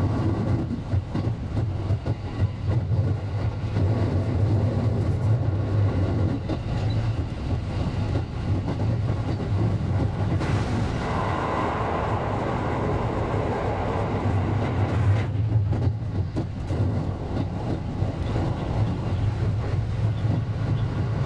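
JR West 223 series electric train running, heard from the front cab: a steady low rumble with rail noise. It grows louder and brighter for a few seconds around the middle.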